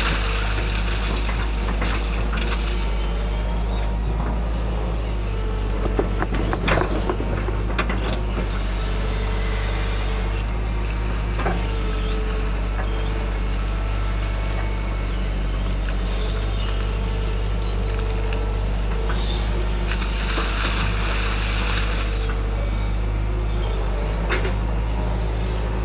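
Hydraulic excavator's diesel engine running steadily under load with a steady hydraulic whine while it digs out a drainage ditch, with a few sharp knocks about six to seven seconds in and brief rushing hiss near the start and about twenty seconds in.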